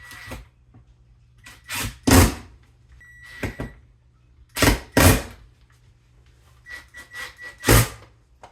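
Hard plastic knocks and clicks, irregular and several in a row, as the parts of a refrigerator water dispenser are handled and pressed back together.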